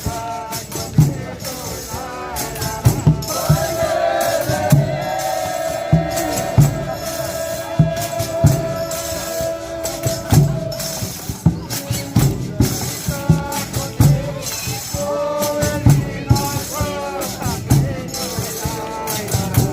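Folia de Reis music: voices singing, with one long held high note from about four to eleven seconds in, over a steady drum beat and the jingle of tambourine and shakers.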